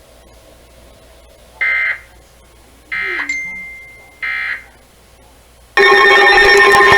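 Emergency Alert System end-of-message signal: three short bursts of shrill digital data tones about a second apart, marking the end of the severe thunderstorm warning. About six seconds in, a loud, steady alert tone begins.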